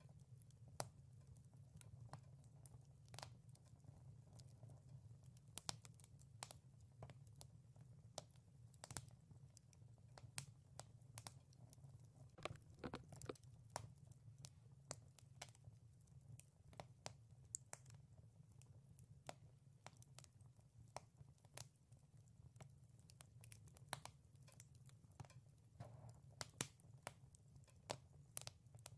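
Faint wood fire crackling, with irregular sharp pops and snaps over a low steady rumble.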